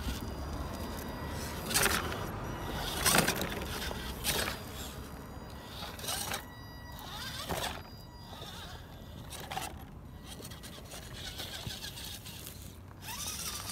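Redcat Everest-10 radio-controlled rock crawler running over rocks: a faint steady electric-motor whir, with several short, loud scrapes and knocks of tyres and chassis on stone.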